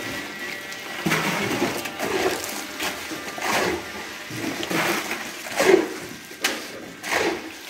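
Scraping and swishing strokes of tools working wet concrete mix, repeating roughly once a second.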